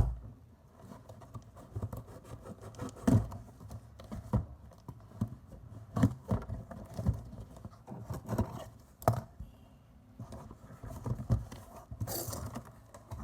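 A cardboard shipping box being opened and handled: scattered knocks, taps and scrapes, with a short rasping hiss near the end.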